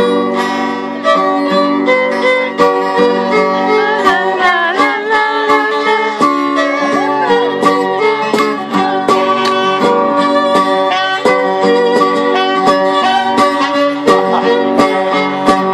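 Acoustic folk band playing an instrumental lead-in: a fiddle carries the melody over strummed acoustic guitar, with a saxophone joining.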